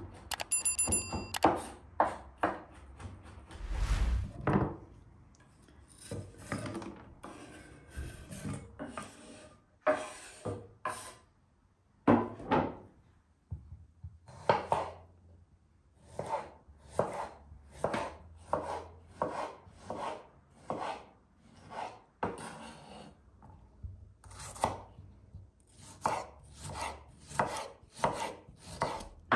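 Kitchen knife chopping on a wooden cutting board. The strokes come quick and close together at first, through herbs, then settle into single cuts about once a second as tomatoes are sliced into wedges.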